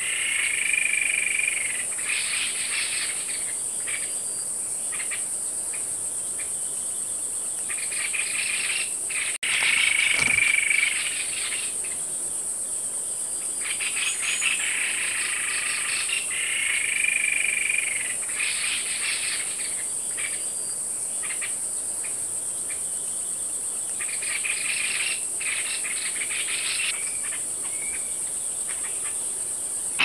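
White-bibbed babbler calling in repeated short bursts of rapid notes, each with a brief steady whistle, every few seconds. Under it runs a steady high-pitched insect drone.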